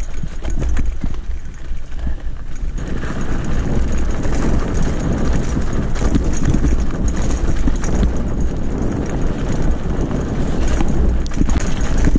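Gravel bike descending a rough dirt singletrack: tyres crunching over dirt and stones and the bike rattling, with heavy wind rumble on the microphone. The clatter grows louder about three seconds in and stays rough and uneven.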